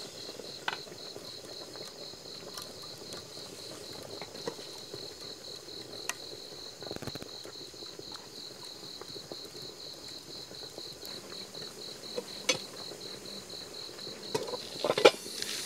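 Crickets chirping in a steady pulsing trill. Beneath them is the soft bubbling of a pot of soup simmering on a wood fire, with a few sharp pops from the burning wood.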